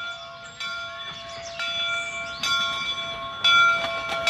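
Steam locomotive's bell ringing, struck about once a second, each stroke ringing on and growing louder as the engine approaches.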